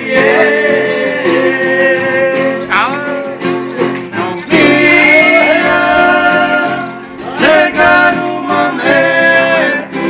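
Men singing a Brazilian country song together in harmony, with two acoustic guitars strummed along. The long held notes slide between pitches at the phrase changes.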